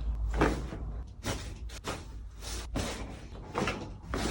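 A series of short, sharp knocks, about eight in four seconds, over a low hum that fades about halfway through.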